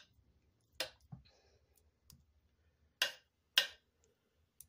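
Spoon knocking and scraping against a slow cooker's crock while spreading cream of chicken soup over the chicken: about six sharp, separate clicks, irregularly spaced.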